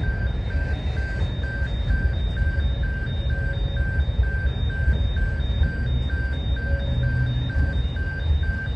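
Level crossing warning bell ringing, an electronic ding repeating about three to four times a second, over a continuous low rumble.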